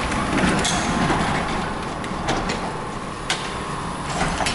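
Sectional garage door being pushed up by hand, a steady rolling rumble with scattered clicks from its rollers and tracks.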